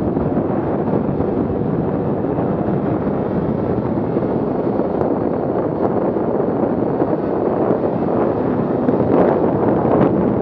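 Steady wind rush buffeting the microphone of a helmet camera on a moving snowmobile. The 2017 Arctic Cat M8000's two-stroke engine and track run beneath it, with a few faint ticks in the second half.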